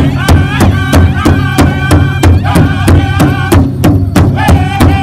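Powwow drum group performing a chicken dance song: several men singing high in unison over a large hide-covered powwow drum struck together with sticks, a steady beat of about three strokes a second. Near four seconds the singing pauses briefly while the drum keeps going, then resumes on a lower line.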